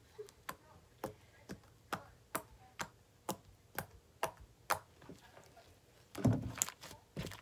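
Homemade soapy slime being squeezed and folded in the hands, giving sharp clicks and pops at an even pace of about two a second. About six seconds in there is a louder, longer squish.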